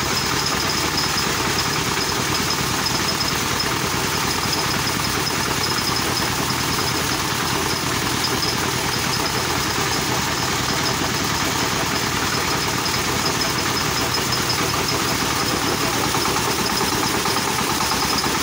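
Paddy threshing machine running steadily, driven by its small diesel engine, while bundles of rice stalks are fed into the threshing drum. A faint steady high whine sits above the machine noise.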